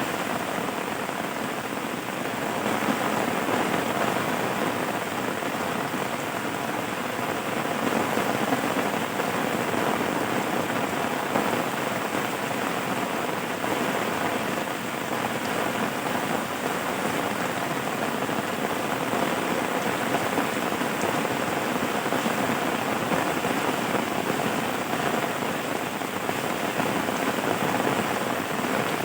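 Steady rain falling, an even continuous hiss of drops with no break or change.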